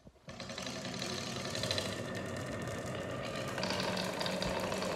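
Many glass marbles rolling and clattering down a wooden Haba slope marble run: a continuous dense rattle of small clicks that starts a moment in and gets louder about three and a half seconds in.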